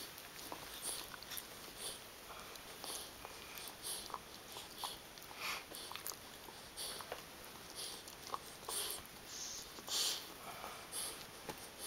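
Bullmastiff puppy gnawing a chew stick: faint, irregular crunching and clicking bites, a few every second, with a louder cluster near the end.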